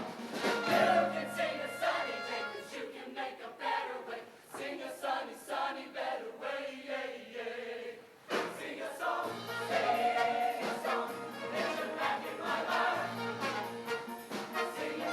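A show choir singing in harmony over instrumental accompaniment, with a steady beat running under the voices.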